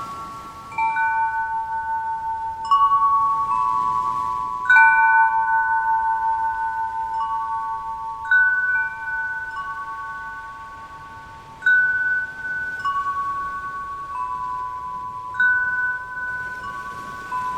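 Wind chimes ringing: several clear metal notes struck together about six times, every two to four seconds, each ringing on for seconds and overlapping the next.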